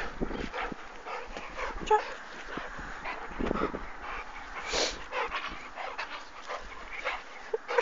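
A small dog panting and giving a short whine about two seconds in, among scattered soft knocks and rustles.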